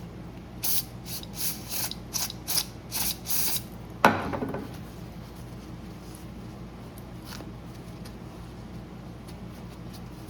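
About eight short squirts of aerosol brake cleaner being sprayed onto a spark plug to clean it, followed about four seconds in by a single sharp clank.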